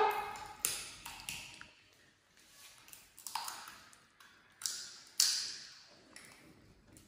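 Sunflower seed shells cracking between a young monkey's teeth: about five sharp, irregularly spaced cracks, each fading quickly.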